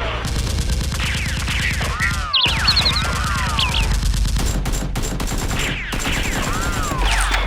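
Rapid, continuous gunfire sound effects: volleys of shots mixed with sweeping whistle-like ricochet whines that fall or arch in pitch, over a steady low hum.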